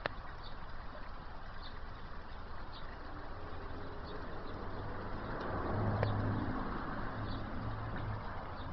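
Small garden-pond fountain splashing steadily into the water. A low hum swells about halfway through and then fades.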